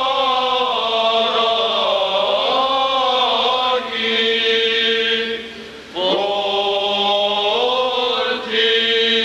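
Armenian liturgical chant: a vocal line sung on long held notes that slide and ornament between pitches, with a breath break just before six seconds in.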